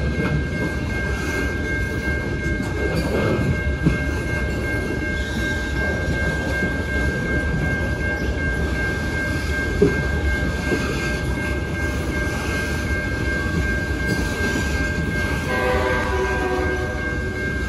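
Freight train of covered hopper cars rolling past a grade crossing: a steady rumble and rattle of wheels on rail, with two sharp clunks and a steady high-pitched ringing throughout. A chord of lower pitched tones comes in near the end.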